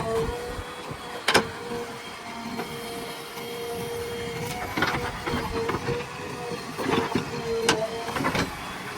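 Backhoe loader at work: the engine running with a steady whine, broken by several sharp metallic knocks and clanks.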